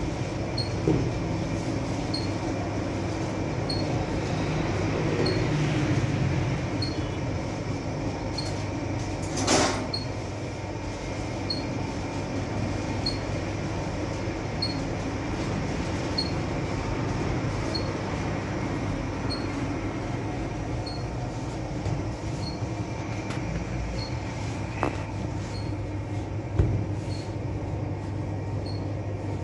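Steady machine hum and rumble with a faint tick about once a second. A brief loud hiss cuts through about a third of the way in, and a few sharp knocks come near the end.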